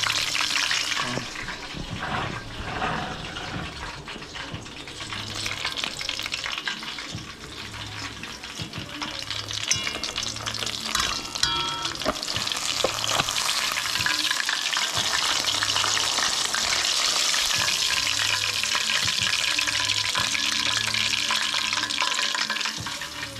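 Barramundi fillets frying in hot oil in a metal pot, a steady sizzle and crackle that grows louder about halfway through.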